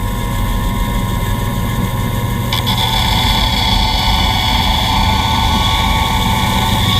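Band saw running steadily along with a dust collector. About two and a half seconds in, the blade starts cutting into the wooden board, adding a higher-pitched whine that stops near the end.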